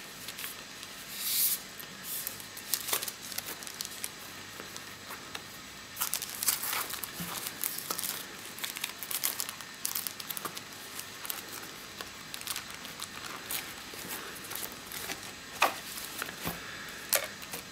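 Paper filter sleeves and a soft fabric filter pouch being handled: irregular rustling and crinkling as square camera filters are tucked into the pouch's slots and the pouch is folded shut.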